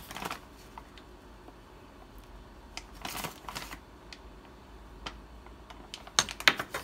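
A metal measuring spoon clicking and tapping against the bowl while flour is measured in, with a brief scooping rustle about halfway through and a quick run of sharp clicks near the end.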